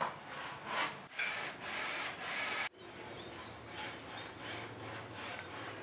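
Quiet, regular rubbing or scraping strokes, about two to three a second, that break off suddenly about halfway through and then resume.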